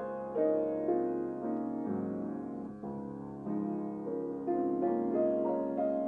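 Acoustic piano playing a slow, quiet piece: single notes and chords in the middle register, struck about twice a second, each left ringing under the next.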